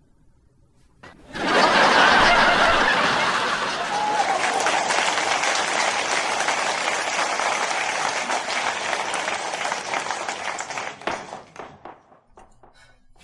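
Audience applause, a sitcom-style applause track over a scene change. It comes in abruptly about a second in, is loudest at first and tapers away near the end.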